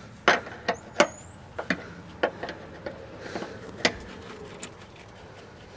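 Irregular sharp metal clicks and taps of a wrench and gloved hands working the threaded air-line fitting loose on top of a semi truck's suspension air bag.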